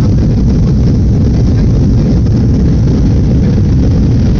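Airliner landing: a loud, steady, low rumble of engine and airflow noise.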